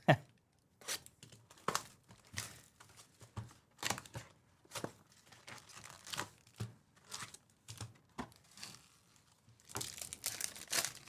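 Trading-card packs being ripped open and cards handled: a run of short, irregular crinkly rips and clicks, busiest near the end.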